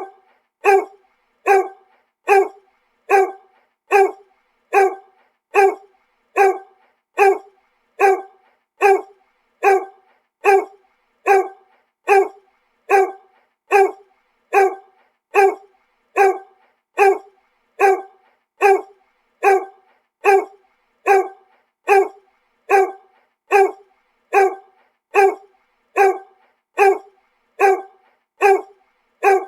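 A dog's bark repeated at a strict, even pace of a little over one bark a second, each bark the same as the last: a single bark looped as a sound effect.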